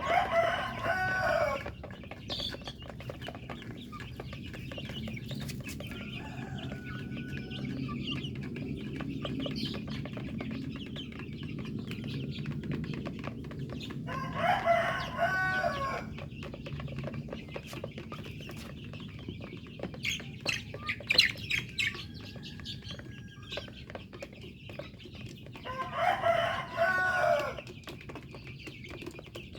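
A rooster crowing three times, each crow about a second and a half long and roughly twelve seconds apart, with chickens clucking in between.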